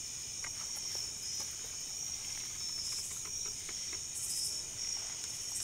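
A steady night chorus of crickets and other insects, chirring high and even, with a few brief louder calls on top.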